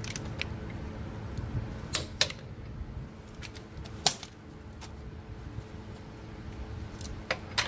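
A few sharp, scattered metal clicks and knocks of hand tools being handled: a hand torque wrench and socket pulled off a wheel lug nut and set down, then a cordless impact wrench picked up, over a low steady rumble.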